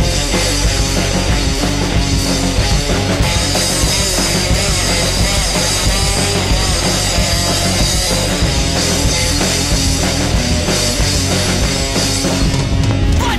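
Punk rock band recording: electric guitar, bass and drums playing a song at a loud, steady level.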